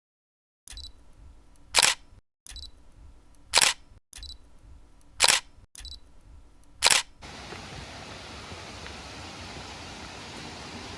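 Camera shutter firing four times, about 1.7 s apart, each loud click preceded by a faint click and a short high beep. About seven seconds in, a steady rush of falling water begins.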